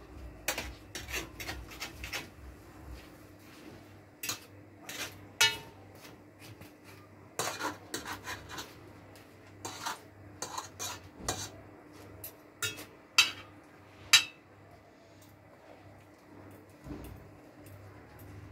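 Metal spoon scraping and clinking against a frying pan as fried aubergine halves are pressed open for stuffing: irregular light taps and scrapes, with a few sharper clinks about two-thirds of the way through.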